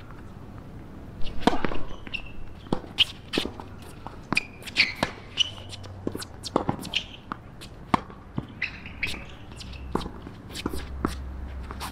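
Tennis rally on a hard court: a string of sharp, irregular hits as the ball comes off the rackets and bounces on the court, with footsteps and short shoe squeaks between them.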